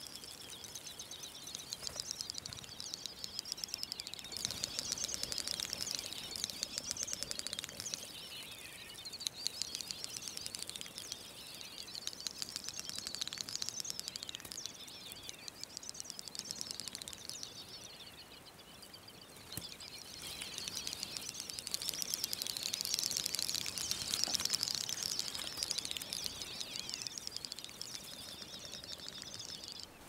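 Chorus of many male great snipes singing at their lek: overlapping rapid, high-pitched clicking and twittering songs. The chorus swells and fades in waves, dropping off a little past the middle before rising again.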